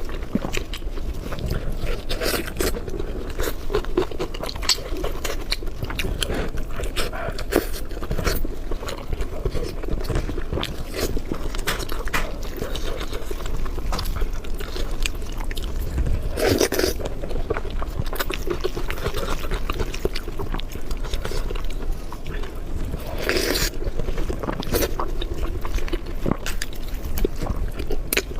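Close-miked eating: steady chewing and biting with wet smacking mouth sounds and quick clicks. Two longer, louder mouth sounds come about halfway and about three quarters of the way through.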